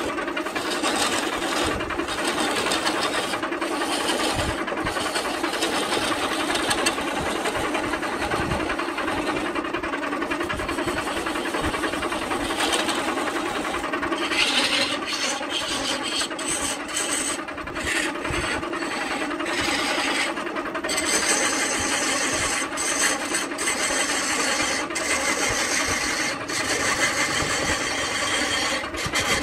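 Belt-driven wood lathe running while a long gouge cuts into a spinning coconut palm log, giving a steady scraping cut over the hum of the lathe.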